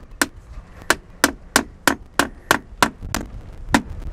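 A hammer driving a trim nail through aluminum fascia: about ten quick, even strikes, roughly three a second, stopping just before the end.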